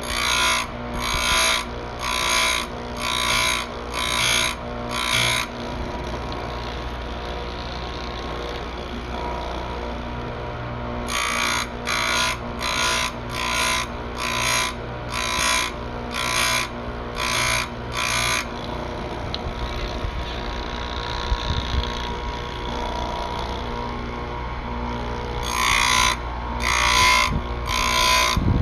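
Electric chainsaw-chain grinder with a steady motor hum, its wheel grinding the cutter teeth one after another: a short grinding burst about every 0.7 s, in runs of seven to nine, with pauses of several seconds between runs where only the motor hums.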